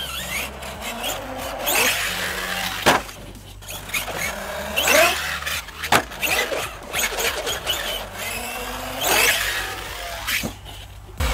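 Traxxas Sledge electric RC monster truck driving hard on concrete, its motor whining up and down repeatedly as it speeds up and slows. A few sharp knocks come from the truck hitting the ground.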